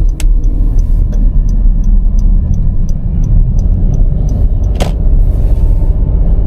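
Honda N-BOX Custom Turbo running, a steady low rumble of engine and road noise, with a regular ticking about three times a second for the first four seconds or so and one sharp click about five seconds in.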